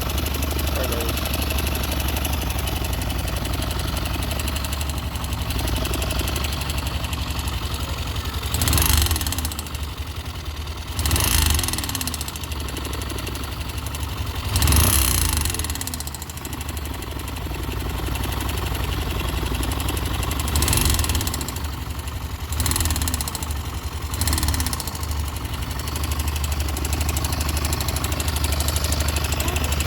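YB motorcycle engine idling steadily, blipped up in revs several times in the middle and dropping back to idle each time. It is running with an engine noise that the owner is concerned about.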